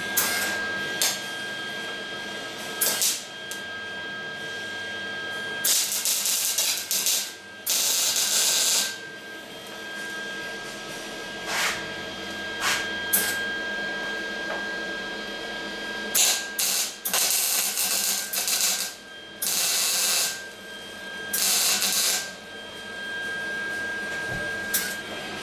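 MIG welder tack- and stitch-welding the new sheet-steel door skin to the door's upper window frame: about a dozen welding bursts, from a fraction of a second to about a second and a half long, with short pauses between them and a faint steady high tone underneath.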